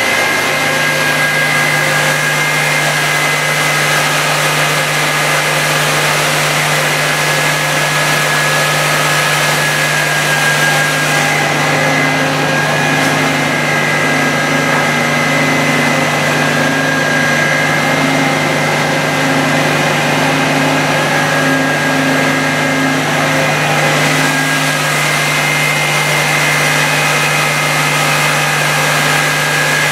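Doosan Puma MX2500 LST CNC lathe running: a steady low hum that comes on right at the start, with a high whine over an even machine noise and a faint pulsing tone through the middle.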